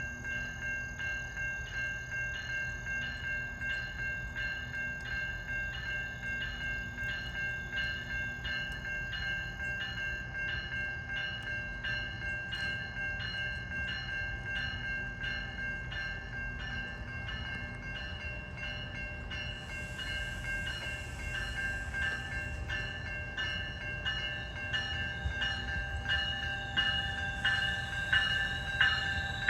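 GO Transit commuter train running past a level crossing with a steady low rumble, while the crossing bell rings in an even rhythm of about two strokes a second. Near the end the rumble and wheel clicks get louder as the train comes closer.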